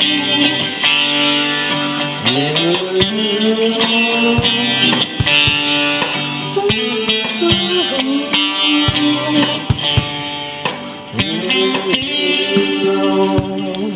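Guitar solo in a bluesy rock song: held notes that bend up in pitch and sustain, over picked and strummed guitar.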